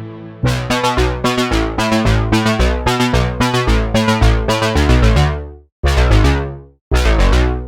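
u-he Diva software synthesizer patch: a held pad fades out, then a fast run of plucky, quickly decaying notes over a bass line plays for about five seconds and stops, followed by two separate chords that each die away.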